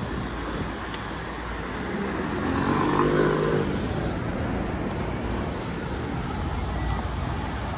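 City street traffic with cars driving through an intersection, mixed with low wind and road rumble. A passing engine hum swells to its loudest about three seconds in, then fades.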